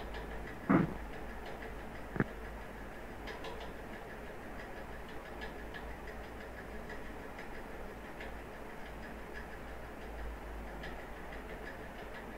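Computer keyboard keys clicking in scattered taps as a command is typed, over a steady hiss and low hum. Two louder thumps come about a second and two seconds in.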